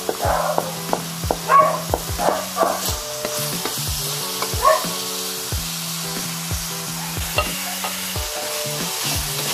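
Meat and vegetables sizzling in an oiled wok, stirred with a wooden spatula that scrapes across the pan in several strokes during the first five seconds.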